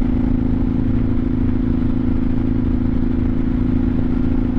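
1986 Honda Shadow 700 (VT700C) V-twin engine running steadily at a constant cruising speed, heard close up from on the bike while riding.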